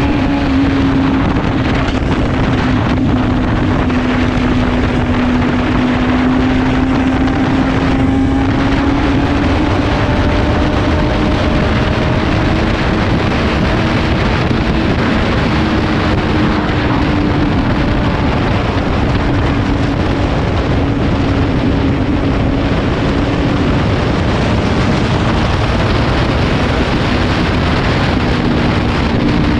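Motorcycle engine running at a steady cruise, its pitch rising and falling gently, under heavy wind rush on the microphone and tyre noise.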